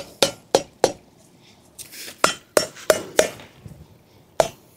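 Rubber mallet striking the top edge of a steel landscape edging strip to hammer it into the ground, each blow giving a sharp clink with a short metallic ring from the steel. There are two quick runs of four blows, about three a second, and a single blow near the end.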